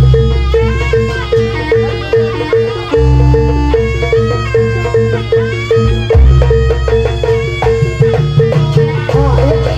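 Loud Javanese traditional music accompanying a Buto dance: one note struck over and over at a quick even pace, heavy drum and bass underneath that break off and come back in, and a bending melody line above.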